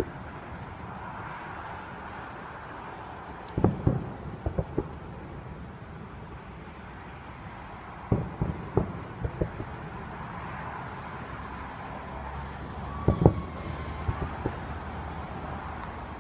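Distant fireworks bursting: three clusters of sharp low booms, each a few quick reports, about four to five seconds apart, over steady road traffic noise.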